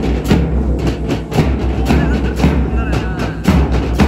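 School marching band playing a march: snare drums and bass drum keep a steady beat of about two strokes a second under low held brass notes from sousaphones and trumpets.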